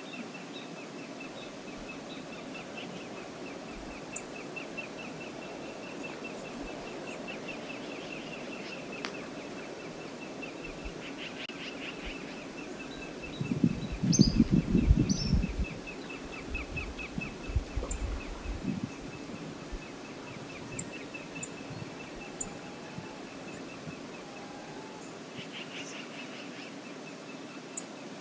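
Outdoor river ambience: a steady rush of flowing river water with a bird's rapid, repeated high chirping over it. About fourteen seconds in, a loud low rumble lasts around two seconds, followed by a few smaller low knocks.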